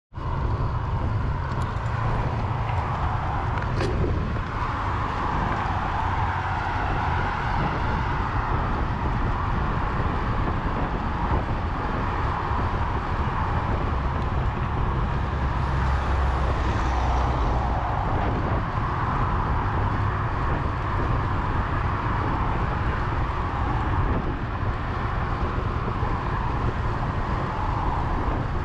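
Steady wind rush on the microphone of a bicycle-riding action camera moving at about 15–18 mph, mixed with the continuous noise of car traffic on the adjacent highway.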